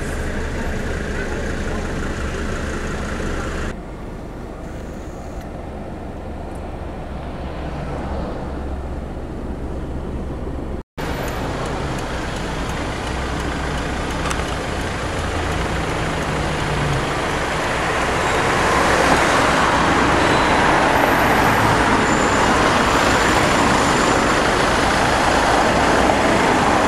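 Road traffic heard from inside a car: a steady low engine hum under road noise. The sound breaks off for a split second about eleven seconds in, and the tyre and traffic noise grows louder over the last third.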